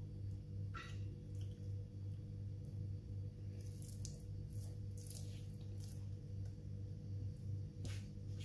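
Hands rubbing wet masala paste onto a raw whole fish, a few faint soft squishing smears, over a steady low electrical hum.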